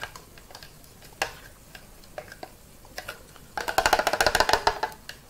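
Wooden spoon scraping and knocking inside a plastic blender jug as thick puréed peanut paste is worked out into a pot. There are a few separate knocks at first, then a rapid, loud run of scraping knocks about three and a half seconds in that lasts over a second.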